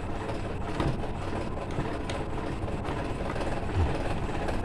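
Steady background noise, with faint rustles and clicks from electrical wires and a plastic lamp holder being handled.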